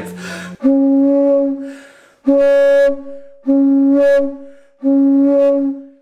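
A wooden flute organ pipe mouth-blown four times in separate breathy notes, each lasting up to about a second. Each note holds one steady pitch with its octave sounding strongly alongside it, as harder blowing pushes the pipe toward its next octave. The second, harder-blown note has the octave loudest.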